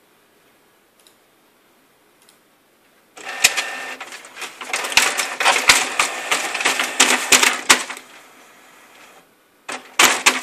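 Canon inkjet printer running: paper feed and print-head mechanism clattering and whirring loudly for about five seconds, starting about three seconds in, then a quieter hum and a second short clattering burst near the end.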